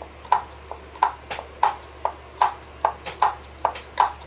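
Brastemp/Consul washing-machine gearbox (agitation mechanism) with its pulley pushed up and down by hand, giving sharp clicks about three times a second, each with a short ring. It is the pulley knocking within its play, which is normal on a new gearbox and not a fault.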